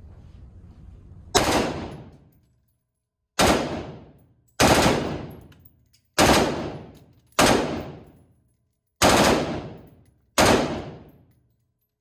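Seven single gunshots fired one at a time, one to two seconds apart, each ringing out and fading over about a second.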